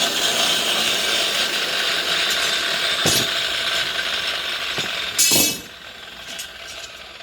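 Steady harsh noise of a tool working metal, with a short loud burst about five seconds in, after which it drops much quieter.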